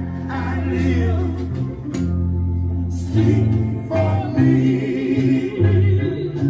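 Gospel-style hymn: voices singing over held bass notes of an instrumental accompaniment.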